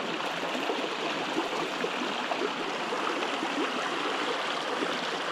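Small rocky creek rushing and splashing over a riffle of stones, a steady, even sound of running water.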